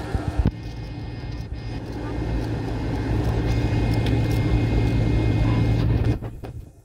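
Airliner cabin noise: a low engine rumble with a steady low hum that builds over a few seconds, with a couple of knocks about half a second in. The sound cuts off suddenly about six seconds in.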